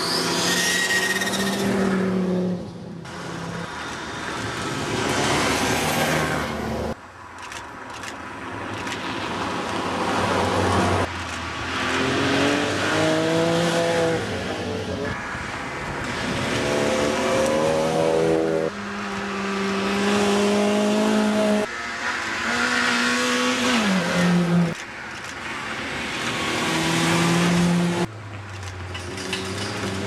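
Classic rally cars driven hard past at speed, one after another. Their engines rev up through the gears, the pitch climbing and falling back at each shift. The sound changes abruptly every few seconds as one car's pass cuts to the next.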